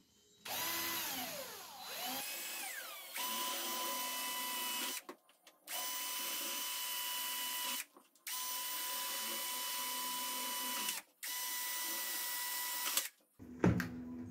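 Black+Decker cordless drill drilling into the plastic third brake light housing in several runs: its whine first falls in pitch as the bit bites, then holds steady through four bursts of about two seconds with short pauses between. After it stops, a brief knock near the end as the drill is put down.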